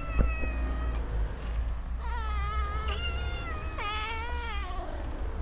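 Cats meowing: one long meow at the start, then three more in quick succession from about two seconds in, the last one falling in pitch. A sharp thump just after the start is the loudest single moment.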